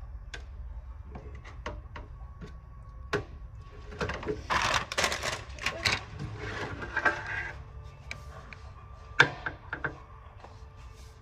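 Things being handled: scattered clicks and knocks, with a stretch of clattering and rustling in the middle and a few more clicks near the end.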